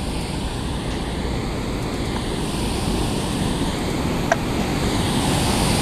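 Water pouring over a concrete dam spillway, a steady rushing sound that slowly grows louder. A short sharp click about four seconds in.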